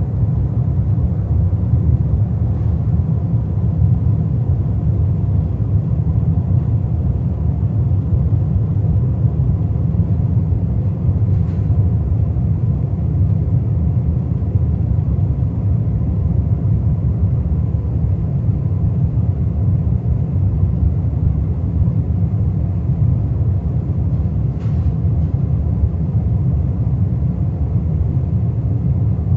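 Steady low rumble of an airliner cabin, with a faint steady hum above it and a couple of faint ticks.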